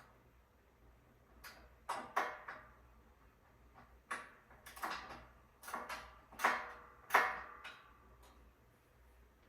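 Ratchet key clicking in short irregular runs as bolts on a metal bed frame are turned, with some clinks of metal parts, about eight clusters of sharp clicks.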